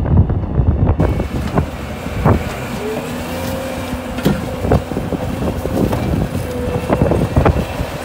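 A Bobcat compact track loader's diesel engine running under load as the machine drives forward, pushing dirt and old tyres with its bucket. Several sharp knocks of debris and the bucket sound through it, and a steady whine holds for about four seconds in the middle.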